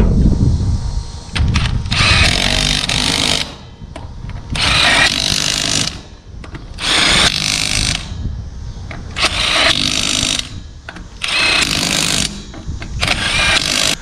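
Power tool run in six short bursts, each about a second and a half and a couple of seconds apart, tightening bolts.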